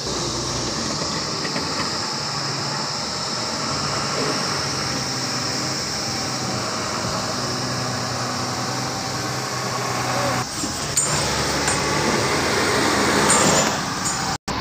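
Diesel truck engines running steadily, with road and cab noise from heavy lorries on a rough unpaved road. The sound gets louder and busier about ten seconds in, then cuts out briefly near the end.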